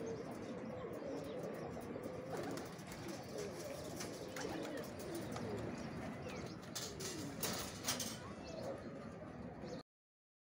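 Domestic pigeons cooing over and over in low, wavering notes, with a quick clatter of flapping wings about seven to eight seconds in as birds take off. The sound cuts off suddenly near the end.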